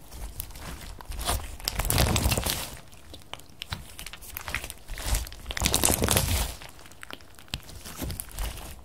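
Bead slime being squeezed and stretched by hand: a crackling, clicking sound as the beads inside rattle against each other. It comes in three bouts with quieter gaps.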